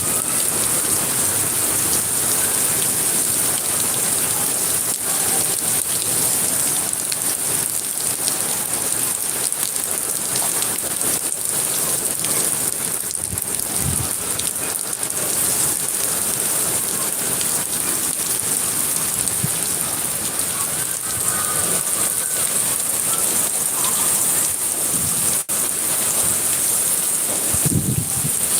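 Steady rain falling, an even hiss of drops on surfaces, with a couple of brief low rumbles partway through and near the end.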